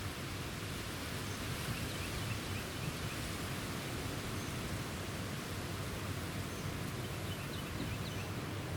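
Steady outdoor background noise with a low rumble, and two brief clusters of faint short high chirps.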